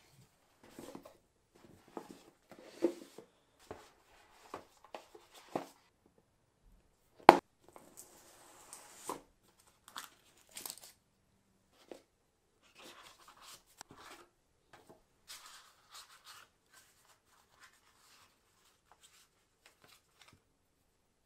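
Unboxing handling sounds from a smartphone's cardboard box: the tear strip ripped off, then scattered rustles, crunches and taps as the box is opened and its contents lifted out. A single sharp knock about seven seconds in is the loudest sound, followed by a longer rustle. Toward the end, quieter paper leaflets are shuffled.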